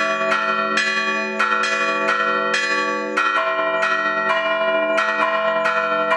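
Orthodox church bells chimed by one ringer pulling the clapper ropes of several fixed bells of different pitches. It is a quick, even run of strikes, about three a second, over the lingering hum of the lower bells.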